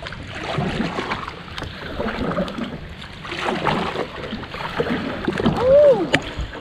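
Kayak paddling: a double-bladed paddle dipping and splashing into the water on alternating sides in a steady rhythm, about one stroke every second and a half. A brief rising-and-falling cry near the end is the loudest moment.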